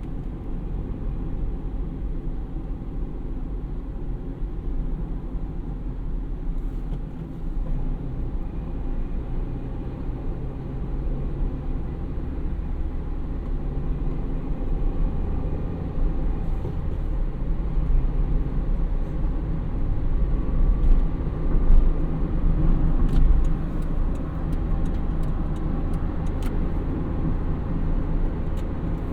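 A car running with a steady low rumble. It grows somewhat louder about two-thirds of the way through, then eases a little near the end.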